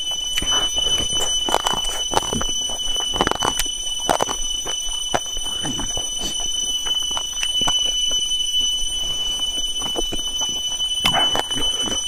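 A steady high-pitched tone holds throughout, with scattered short clicks and faint voices underneath.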